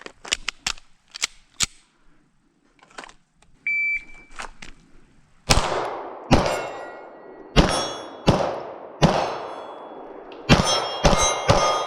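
Shot timer beeps once, then a pistol fires at steel targets: single shots about a second apart, then a fast string of shots near the end, with the steel plates ringing on the hits. A few faint clicks of gun handling come before the beep.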